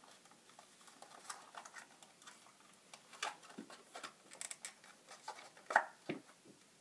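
Irregular small clicks and crinkles of stiff plastic blister packaging being pried and handled, with one louder click near the end.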